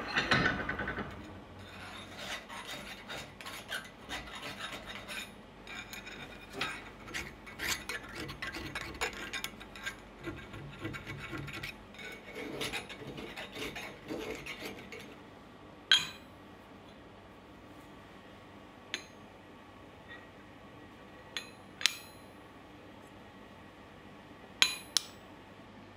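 Hand filing on steel: a thin round file rasps in quick, irregular strokes through a drilled hole in a steel bar, beginning with a knock. After about fifteen seconds the filing stops, and a few sharp metal clinks follow.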